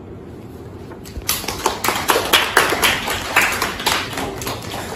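A small group of people clapping, starting about a second in, loudest in the middle and thinning out toward the end.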